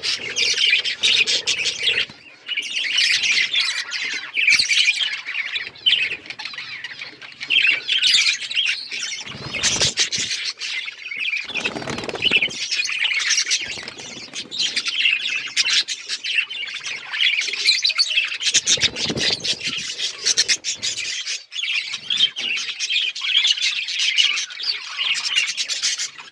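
Several budgies chattering and warbling continuously in a dense mix of chirps and squawks, with a few brief lower rustles about ten, twelve and nineteen seconds in.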